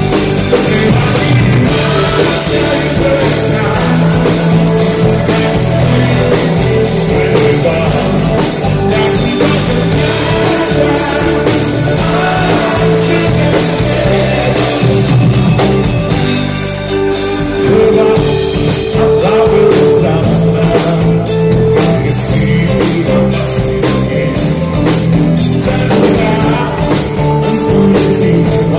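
Live rock band playing loud: singing over electric guitars, bass and a drum kit. The cymbals drop out for a couple of seconds about halfway through, then the full band comes back in.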